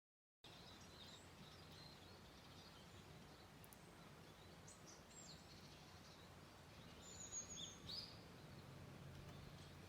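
Near silence: faint outdoor background with a few soft, high bird chirps about halfway through and toward the end.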